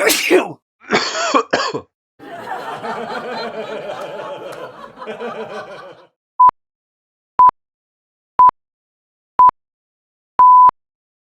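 A run of separate sound-effect clips. It opens with a short sweep and two brief noisy bursts, then a few seconds of jumbled noisy texture, then five electronic beeps at one steady pitch. The beeps come a second apart, the last held longer, in the pattern of a countdown timer.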